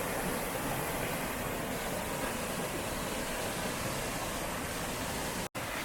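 Steady rush of a mountain river tumbling over rocky cascades, an even hiss with no breaks except a split-second dropout near the end.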